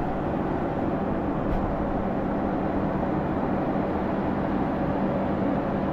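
Electric locomotive standing under the wires with its equipment running: a steady, even hum with a low tone held underneath.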